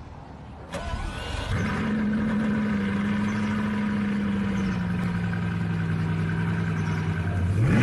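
A car engine starts with a sharp click about a second in, catches and settles into a steady idle, which drops slightly in pitch about halfway through. A rising rev begins near the end.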